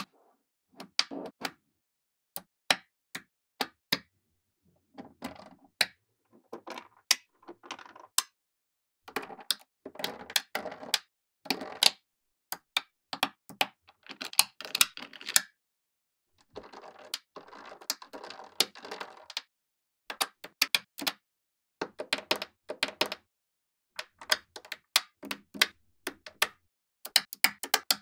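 Small magnetic balls clicking sharply as they snap together one at a time, with stretches of quicker clatter as groups of balls are handled and pressed into place.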